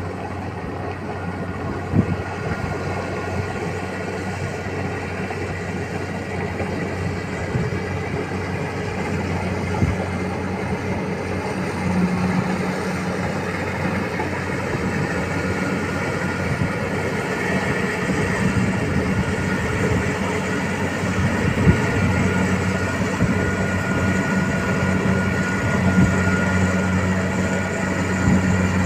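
Rice harvesting machine's engine running steadily, a low drone that grows slowly louder, with a few brief knocks.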